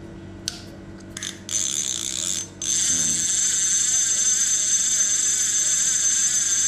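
Okuma Tesoro 10S conventional reel being cranked by hand: a click, then a steady high whirring of the reel's gears with a thin whine, which breaks off briefly near the start and then runs on evenly.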